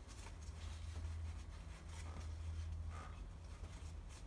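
Faint handling noise: a few light clicks and rubs as an LT1 Optispark distributor is worked into place on the front of the engine, over a steady low hum.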